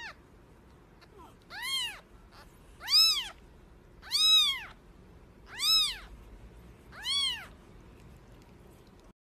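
Newborn kitten mewing: five high, thin cries about a second and a half apart, each rising and then falling in pitch.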